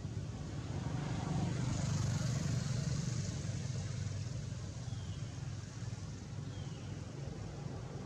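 Low, steady motor rumble of a distant vehicle that swells for a few seconds about a second in, then eases, over a constant hiss, with two faint short chirps later on.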